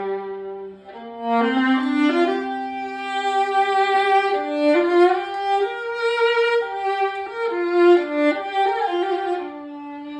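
Solo violin playing a melody of held notes, sometimes two notes at once, with a short break about a second in.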